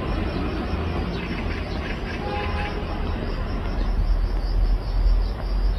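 Outdoor ambience: a steady low rumble, with an insect chirping faintly in a fast, even rhythm and a brief chirp a little past two seconds in.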